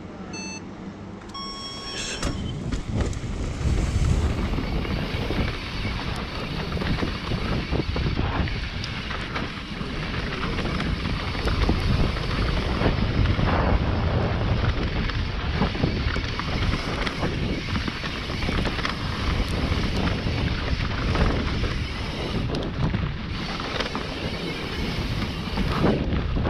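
Electronic start-timer beeps, a short one at the start and a longer start tone about two seconds in, then a mountain bike descending a dirt trail at speed: wind rushing over the microphone, tyre noise on the dirt, and frequent knocks and rattles of the bike over bumps.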